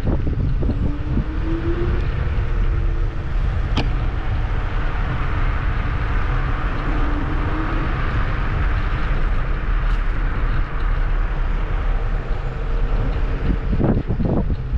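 Wind buffeting the microphone over the steady rumble of a Kugoo G2 Max electric scooter riding along, with a faint motor whine that rises twice. A sharp click about four seconds in.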